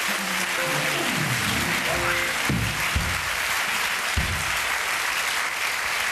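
Studio audience applauding, with the house band playing a short musical sting over the first few seconds, ending on a couple of low bass notes.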